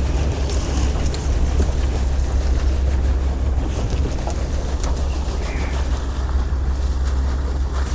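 Fishing boat's engine running steadily, with a rushing wash of water as the razor-clam dredge's hose jets pumped water into the sea while the dredge is paid out over the side.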